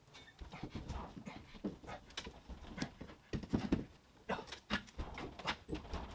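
Heavy breathing and irregular knocks of wood and hardware as a heavy timber beam is worked into a tight fit between posts.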